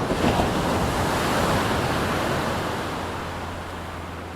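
Ocean surf: a wave breaking and rushing up the shore, its wash loudest at first and then slowly fading.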